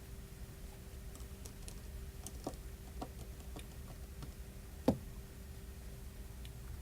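Small, scattered clicks and taps of a precision screwdriver and tiny phone screws being handled during iPhone 4S disassembly, with one sharper click about five seconds in, over a faint steady hum.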